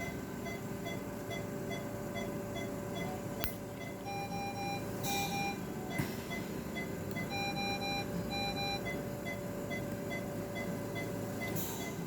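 Surgical patient monitor beeping fast and evenly, with two runs of three longer alarm tones, over a steady hum. A couple of sharp clicks.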